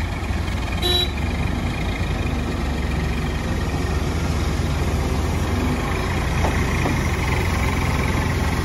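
Heavy diesel machinery engine running steadily with a low rumble, with a short ringing tone about a second in.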